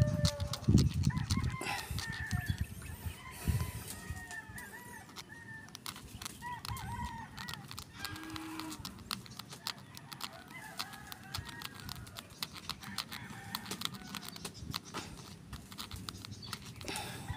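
Chickens clucking and calling in the background, over close clicking and scratching from fingers working a needle into an eggshell, with a few dull bumps in the first few seconds.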